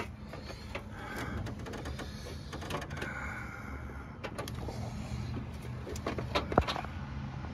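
Handling noise in a car's engine bay: scattered clicks, knocks and short squeaks as the wiring harness and its corrugated plastic loom are handled, over a steady low hum.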